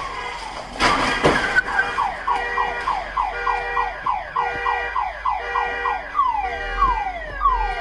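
A loud crunching impact about a second in as an SUV hits a parked car, then a car alarm going off. The alarm gives repeating falling chirps, about four a second, which change to slower, longer falling sweeps near the end.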